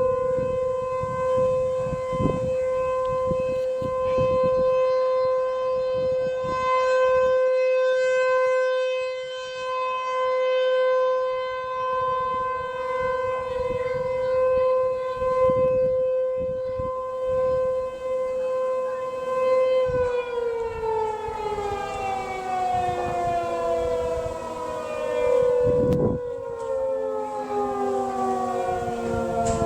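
ASC T-128 outdoor warning siren sounding its steady Alert tone at a constant pitch, its loudness swelling and dipping. About 20 seconds in, it winds down, the pitch falling slowly and steadily.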